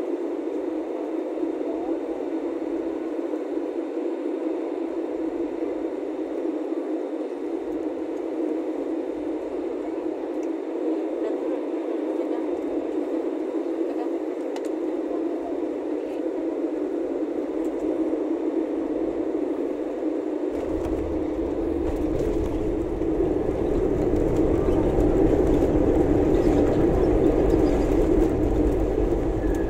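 Airliner cabin noise on final approach: a steady rush of jet engines and airflow. About two-thirds of the way through, the wheels touch down and a low rumble from the runway sets in, growing louder during the landing roll.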